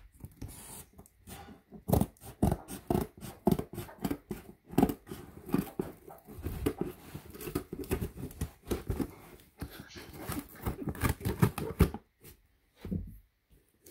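Scissors cutting through plastic packing tape on a cardboard box: a dense run of irregular snips, scrapes and crinkles that dies down near the end.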